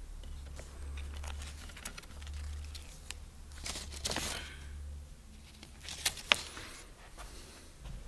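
Rustling and handling of papers, with several light clicks and knocks, the sharpest about six seconds in. A low hum runs underneath for the first five seconds or so.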